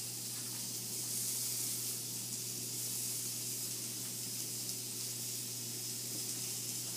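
Food sizzling steadily on a hot cooking surface, with a steady low hum underneath.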